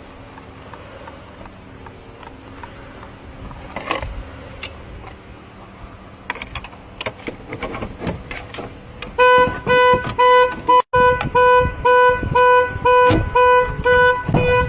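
A Mazda 3's horn honking on and off about twice a second: the car's alarm set off as the locked car is opened without a key. It starts about nine seconds in, after a stretch of faint scattered clicks.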